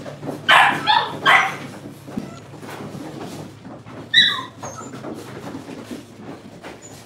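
Puppies playing and yipping: three quick high-pitched barks close together about half a second in, then a single sharp yelp about four seconds in.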